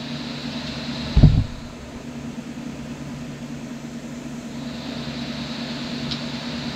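Steady low mechanical hum of a fan-like machine, with a single dull thump about a second in.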